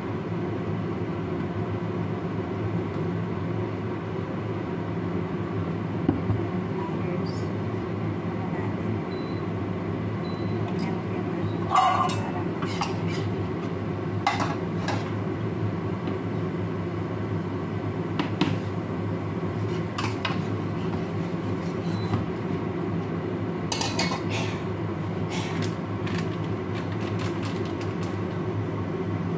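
A spatula and cookware clinking and knocking against a stainless steel frying pan and a glass bowl: scattered sharp clinks, the loudest about twelve seconds in and a cluster near the end, over a steady low hum.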